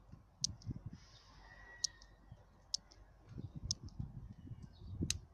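Small campfire crackling: sharp, scattered pops, about one a second, from burning twigs and paper, over a low rumble.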